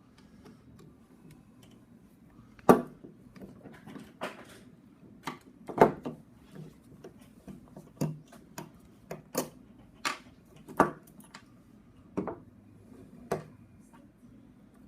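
Irregular sharp clicks and taps as a hand ratchet and its small metal parts are handled while its side lock is being replaced, with two louder knocks in the first half.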